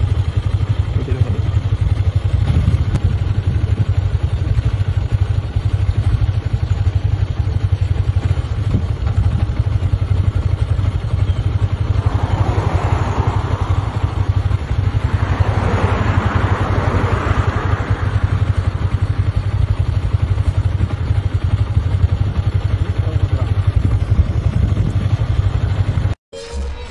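Steady low rumble of an idling vehicle engine, with a passing car's engine and tyre noise swelling and fading twice about halfway through.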